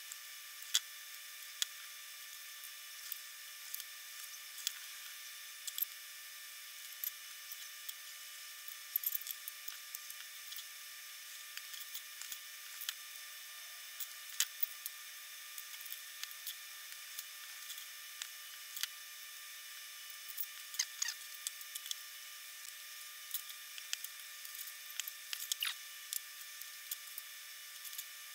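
Faint, irregular clicks and taps over a steady hiss: thin aluminum skin panels being snapped out with a chisel and small snippers, and the pieces handled and set down.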